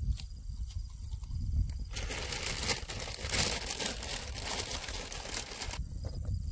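Low rumble for the first two seconds, then a steady hiss with many small crackles as a pot of water boils over a wood campfire with instant noodles in it. The hiss cuts off suddenly near the end.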